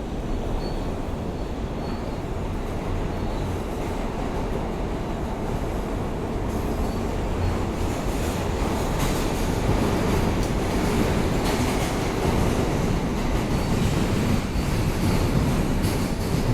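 Steady rumble and rail noise inside a moving R160A-2 New York subway car, swelling slightly in the second half. There is no ventilation fan noise, because this car's air conditioning is broken.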